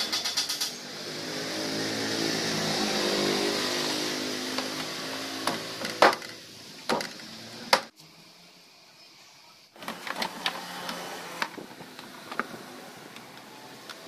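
Plastic knocks and clicks from a Godrej top-loading washing machine's cabinet panels and lid being handled and prised apart; a few sharp knocks around the middle are the loudest. A droning hum swells and fades over the first half, and the rest is quieter with light taps.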